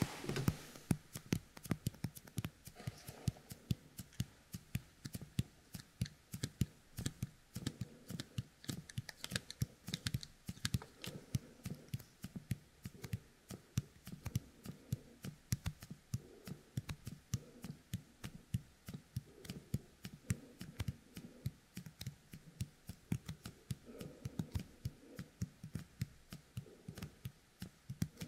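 Fingertips coated with the sticky paste of a yōkai kemuri toy being pressed together and pulled apart right at a binaural dummy-head microphone: a dense, irregular run of small sticky clicks and crackles, several a second.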